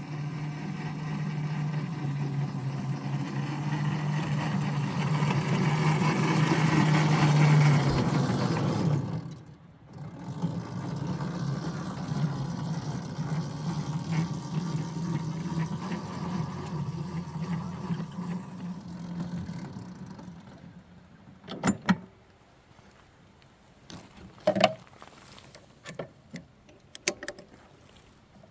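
A ride-on backyard train's small engine running steadily, growing louder over the first eight seconds and breaking off about nine seconds in. It comes back more quietly and fades out around twenty seconds in, followed by a handful of sharp knocks and clunks.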